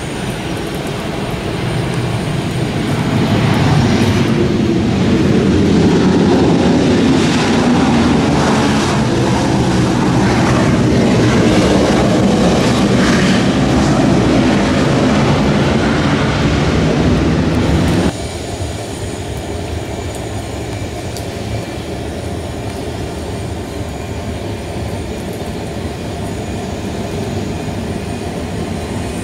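Jet airliners landing on a wet runway. A Boeing 737's roar swells a few seconds after touchdown and stays loud, then drops away suddenly about two-thirds of the way through, leaving a quieter, steady jet rumble as an Embraer E-Jet comes in to land.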